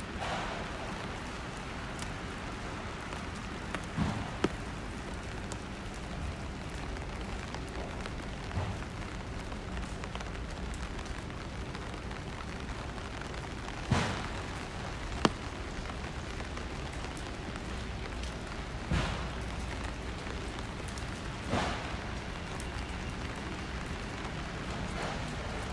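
Steady rain on a city street, an even hiss, broken by a few sharp taps of large drops landing close by. The loudest taps fall about 4 and 14 seconds in.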